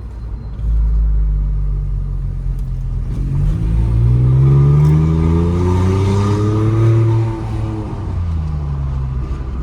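VW Polo 1.0 TSI three-cylinder turbo engine accelerating hard with its stainless exhaust cutout valve open: the exhaust note rises steadily for several seconds, drops at a gear change near the end, and starts climbing again. The shift brings the exhaust crackle ("estralando") that the open cutout gives.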